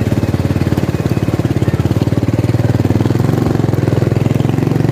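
Motorcycle engine running steadily with an even, fast pulsing beat. The rider feels it losing pull and thinks it is running low on fuel.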